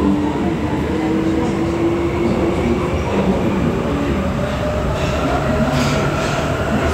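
Budapest M3 metro train running, heard from inside the passenger car: a steady loud rumble with a motor whine that slowly rises in pitch as it picks up speed.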